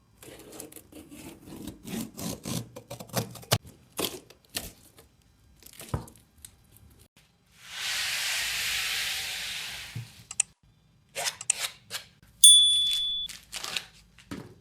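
Packaging being handled and opened: a run of rustles and clicks, then a steady tearing or sliding hiss for a couple of seconds midway, more clicks, and a brief high beep near the end.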